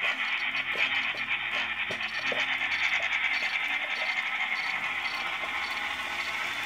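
N scale model steam locomotive and passenger cars running along the track: a steady high-pitched whirr and rattle of the small motor and wheels.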